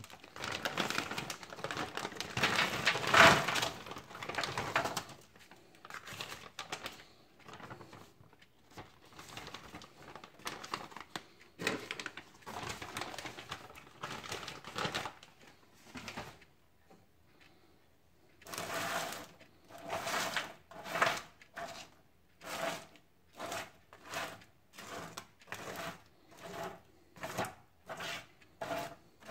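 Frozen French fries poured from a plastic bag onto a parchment-lined baking tray: the bag crinkles and the frozen sticks clatter down, loudest in the first few seconds. Later a spatula spreads the fries across the tray in regular scraping strokes, about one a second.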